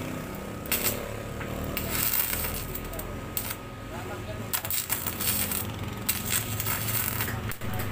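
TIG welding arc on an aluminium motorcycle engine case, struck in several short bursts with pauses between as the filler rod is fed in; the welder is a beginner still learning the argon setting and technique.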